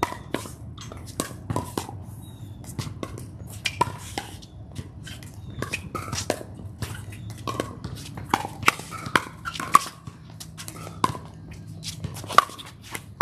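Pickleball rally: paddles striking the hollow plastic ball again and again, in sharp irregular pops, sometimes in quick exchanges, with the ball bouncing on the hard court.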